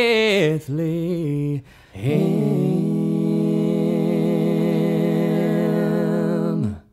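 Unaccompanied voices singing in harmony: two short sung phrases, then one long held final chord that stops shortly before the end.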